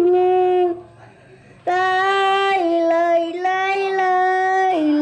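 A boy singing long held notes into a handheld karaoke microphone with a built-in speaker. There is a short break about a second in, then he sings on.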